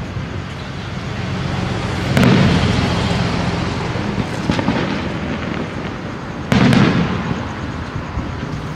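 Aerial fireworks display: two loud booms, about two seconds in and again about six and a half seconds in, each followed by a fading rumble, with continuous rumble and crackle between them.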